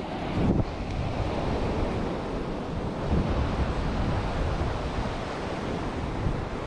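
Strong sea wind buffeting the microphone over the steady wash of surf.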